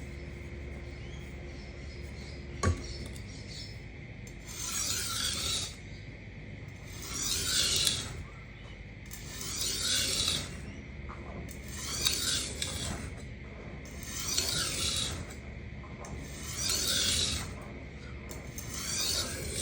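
Kitchen knife edge drawn in light edge-trailing strokes across a coarse 140-grit Atoma diamond plate to minimise the burr: a rasping scrape about every two and a half seconds, seven strokes starting about four seconds in. A steady hum runs underneath, with one sharp click before the strokes begin.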